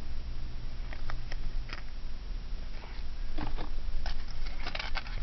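Small pieces of costume jewelry clicking and rattling as they are picked through by hand: a scatter of light clicks that grows busier toward the end.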